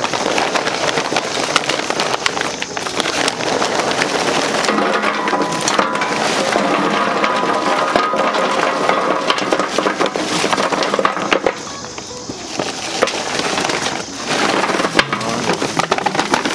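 Charcoal briquettes pouring from a paper bag into the metal charcoal hopper of a Masterbuilt Gravity Series 560 smoker: a dense, continuous clatter of lumps. It eases off about twelve seconds in and picks up again about two seconds later.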